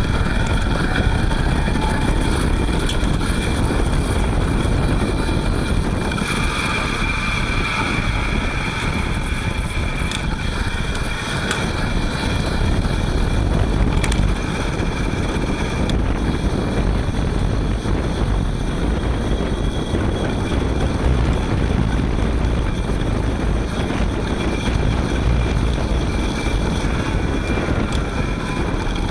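Front hub motor of a Panasonic ViVi Charge WT electric-assist bicycle turning on the move, a steady whine with a hissing 'shaa' over road and wind rumble, the hiss growing louder for a few seconds about a quarter of the way in. The uploader attributes the noise to grease inside the hub motor stiffened by the cold, just after setting off, which clears once the motor warms up.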